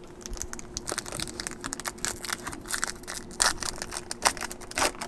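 Crinkling and tearing of a foil trading-card pack wrapper as it is opened, with the cards inside being handled: irregular crackles, a few louder ones in the middle and near the end.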